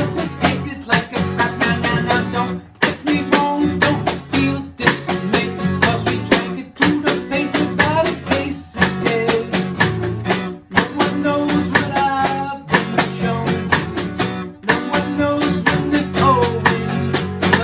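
Acoustic guitar music, strummed chords with brief breaks about every two seconds.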